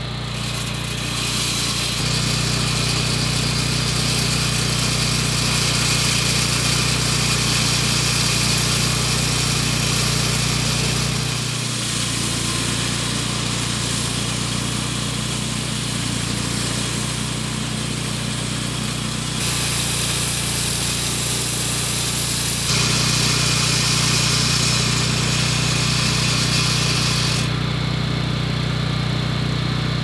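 Floor saw's Honda GX390 single-cylinder petrol engine running steadily at full throttle while its diamond blade wet-cuts concrete, a hissing grind of blade on slab over the engine tone. Near the end the high cutting noise drops away while the engine runs on.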